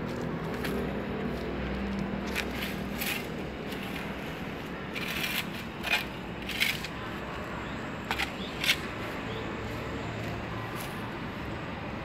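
A hand tool scraping and dragging through dry leaves and dirt: irregular crackling scrapes, most of them bunched in the middle.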